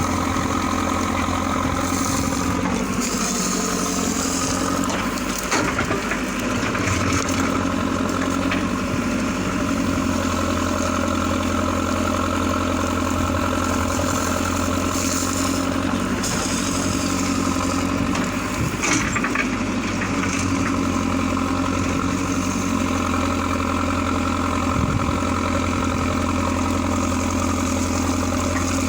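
Mahindra Arjun 605 Novo tractor's diesel engine running steadily, with a few short knocks and clanks from the loader backhoe working.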